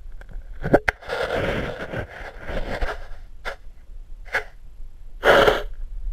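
Handling noise of a camera in a waterproof housing held underwater in a tide pool: two sharp knocks just under a second in, then a wash of water noise and several short swishes as the housing moves through the water and brushes the rocks.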